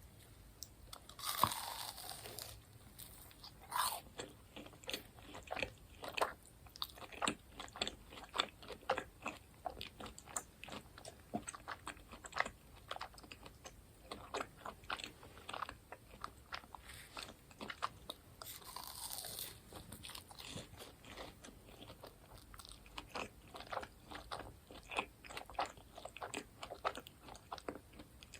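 Close-miked crunching and chewing of crispy fried food, Bburinkle cheese-powdered fried chicken and cheese balls, many sharp irregular crunches a second.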